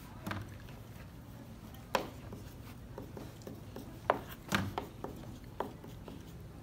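A handful of short, sharp taps and clicks of objects handled on a wooden desk, the loudest about two seconds in and a quick cluster around four seconds, over quiet room tone.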